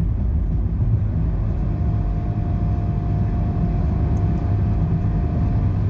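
Nissan Note e-Power Nismo S on the move, heard from inside the cabin: a steady low rumble of road and drivetrain noise. A steady whine joins about a second and a half in and fades just before the end.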